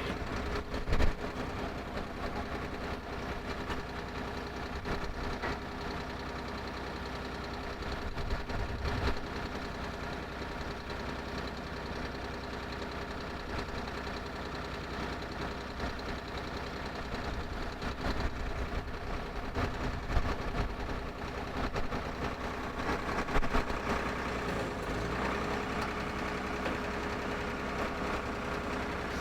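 Water well drill rig's engine running steadily, with a few sharp knocks: one about a second in and another near the end.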